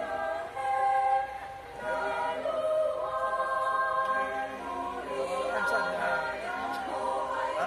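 Youth chorale singing unaccompanied, holding sustained chords, with voices sliding up and down in pitch in the second half.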